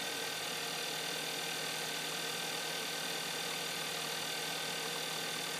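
Hyundai Santa Fe engine idling steadily shortly after start-up, its sound settled into an even hum.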